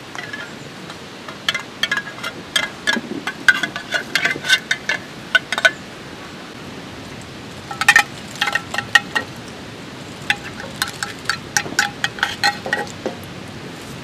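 A metal spoon clinking and scraping against a small tin can as canned yakitori is spooned out, in three bursts of quick, ringing clinks.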